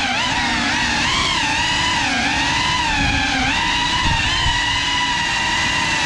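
Brushless motors of a GEPRC Cinelog 35 cinewhoop FPV drone whining, the pitch rising and falling as the throttle changes.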